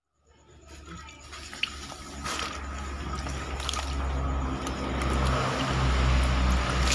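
Floodwater sloshing and trickling around sacks and plastic crates in a flooded storeroom, over a steady low hum. It fades in over the first second or two, with a few faint drips and ticks.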